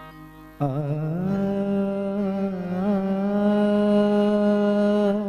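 A man's voice singing one long held note over live band accompaniment, coming in suddenly about half a second in, wavering briefly at the start and then held steady.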